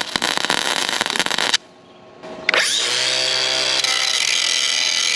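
Welding arc crackling for about a second and a half as a small leak hole in the roller is welded shut, then stopping. About two and a half seconds in, an angle grinder spins up and runs steadily.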